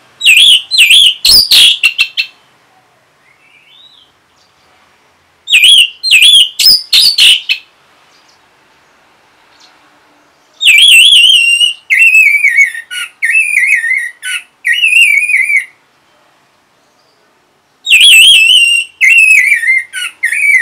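Orange-headed thrush song: four loud phrases of quick, warbling whistled notes, several dropping in pitch, mixed with sharp clicks, separated by pauses of a few seconds.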